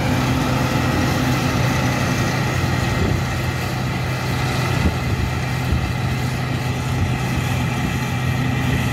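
John Deere 9560WTS combine harvester running steadily under load while harvesting grain: an even engine hum mixed with the constant noise of its threshing and straw-chopping machinery.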